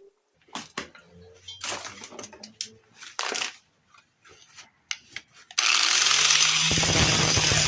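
Scattered clicks and clatter of handling, then, about two-thirds of the way in, a power tool switches on suddenly and runs loudly and steadily.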